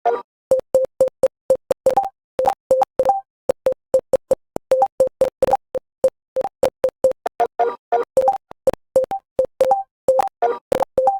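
Hancom Typing Practice's key-press sound effects: a rapid, irregular run of short electronic beeps, one per keystroke, about three to five a second. Most are at one pitch, with some higher beeps mixed in.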